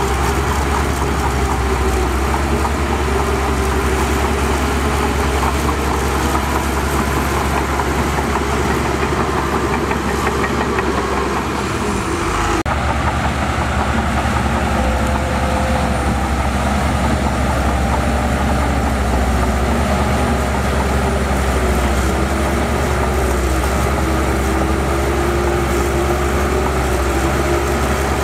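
Heavy diesel engines of earthmoving machinery running steadily, with a deep, constant low hum. The sound changes abruptly about halfway through.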